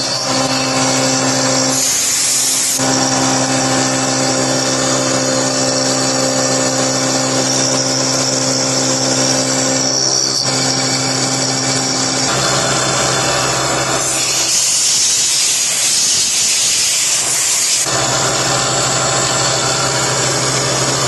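CNC milling machine spindle running steadily while milling a metal enclosure, a constant hum and whine under a hiss. The hiss grows louder briefly about two seconds in, and again for about four seconds later on.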